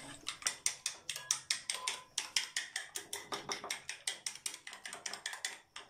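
Metal spoon beating egg in a glass bowl: quick, even clinking strokes against the glass, about five a second, stopping near the end.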